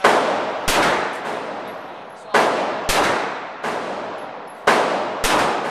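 Glock 17 9mm pistol fired seven times at uneven intervals of about half a second to a second, each shot ringing off in a long echo down the indoor range.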